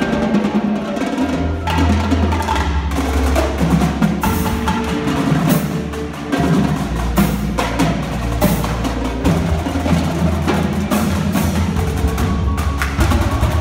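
Indoor percussion ensemble playing: marching snare, tenor and bass drums in dense, rapid rhythms over marimbas and vibraphones, with sustained low notes underneath.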